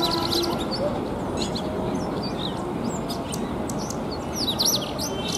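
Male Indian robin singing: short phrases of quick, high, sharply down-slurred chirping notes, given in three bursts, the loudest near the end.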